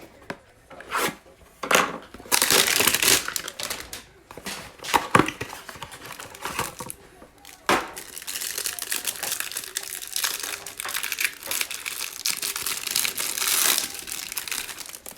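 Plastic wrapper of a basketball card pack being torn open and crumpled. It crinkles in a few short bursts, then sets off sharply into a long stretch of continuous crinkling that stops shortly before the end.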